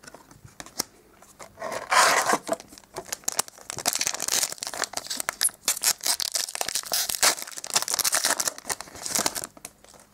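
Trading-card booster pack being torn open by hand, its crinkly wrapper ripping and crackling from about a second and a half in until just before the end.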